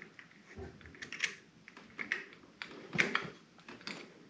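Light, irregular clicks and taps of a small Torx driver turning screws out of a motorcycle handlebar switch housing, with a louder click about three seconds in.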